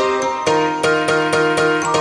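Instrumental background music with a steady beat, notes struck about three times a second; a low bass line comes in about half a second in.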